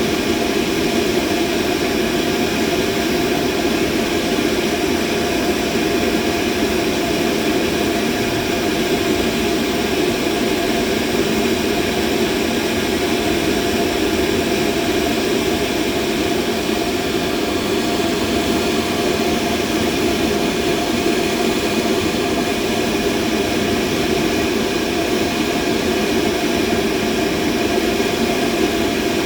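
Steady, unchanging machine drone: a continuous rushing mechanical noise, strongest in a low-middle band, with faint steady tones above it.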